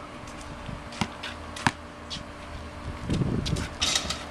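Basketball bouncing on a concrete court: a few sharp, separate bounces in the first two seconds, then a brief scuffing hiss near the end.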